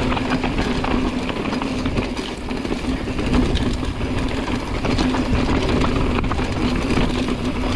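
Mountain bike riding fast down a rough trail: tyres rumbling over dirt and rock, the bike rattling with many small knocks, and wind noise on the microphone, with a faint steady hum underneath.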